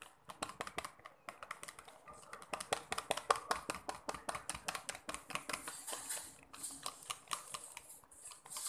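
Small wire whisk stirring a clear glue-and-water slime mix in a plastic bowl, its wires clicking rapidly and steadily against the bowl, several clicks a second. This is the baking soda being whisked into the glue until none can be seen.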